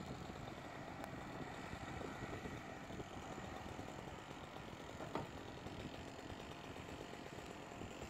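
Excavator's diesel engine running steadily and faintly, with one sharp crack about five seconds in.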